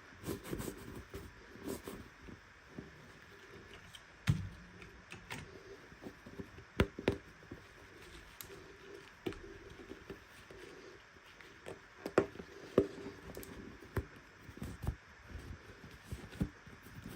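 Small plastic toy pieces and packaging handled by hand: irregular sharp clicks and taps with light scraping, a few louder knocks among them.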